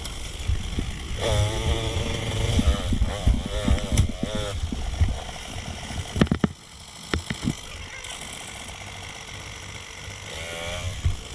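Dirt bike engine revving up and down repeatedly on rough single-track, its pitch wavering with the throttle. Under it runs a low rumble full of knocks from the bike over bumps, with a cluster of sharp knocks about six to seven seconds in. The audio is sped up to double speed.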